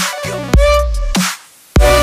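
Electronic dance music with a heavy bass beat and held synth tones. It drops out briefly shortly before the end, then the bass comes back in.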